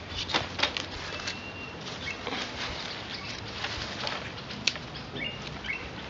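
Split bamboo strips rustling and clicking as they are handled and woven between the upright twigs of a traditional woven beehive, with a few sharp clicks near the start and one about four and a half seconds in.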